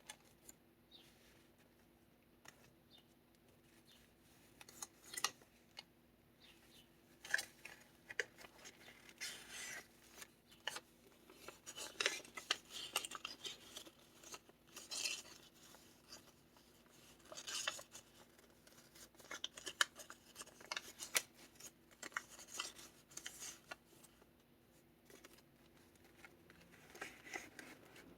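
Pages of a handmade kraft-envelope junk journal being turned and handled: crisp paper rustling and crinkling in short, irregular bursts. Sparse for the first few seconds, then busier.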